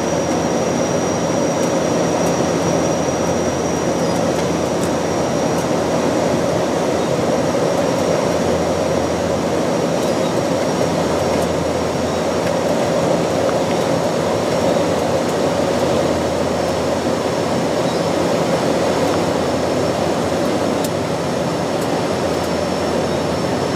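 Steady drone of a Bombardier Dash 8 Q400 airliner heard on the flight deck during final approach: its Pratt & Whitney PW150A turboprops and six-bladed propellers, mixed with airflow noise, plus a thin high whine.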